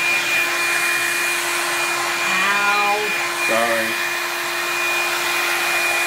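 Hot Tools blowout styler, a hot-air round brush, running: a steady, loud rush of blown air over a steady motor hum and a high whine.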